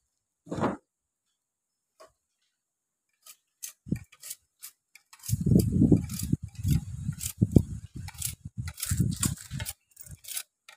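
A knife scraping the rind off a sugarcane stalk, in quick irregular scraping strokes and knocks. The strokes start about five seconds in and come thick from then on.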